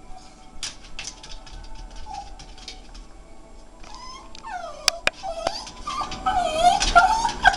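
Jack Russell Terrier whining, high wavering whimpers that slide up and down in pitch, starting about halfway in and growing louder near the end. Light scattered clicks come before the whines.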